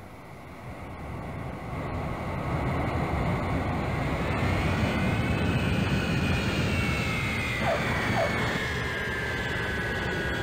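Jet airliner flying past on its landing approach: the engine noise swells over the first few seconds into a steady rumble, and a high whine climbs slightly, then slides down in pitch as the plane passes.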